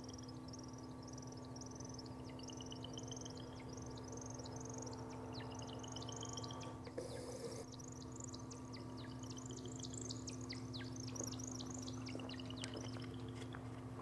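Night chorus of small animals: a high chirp repeating about twice a second, short rising buzzy trills now and then, and a run of sharp falling chirps in the second half, over a steady low hum.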